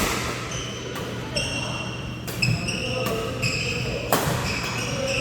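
Badminton rally: racket strings hit the shuttlecock with sharp cracks, loudest at the start and about four seconds in, with lighter hits between. Court shoes squeak briefly again and again on the floor.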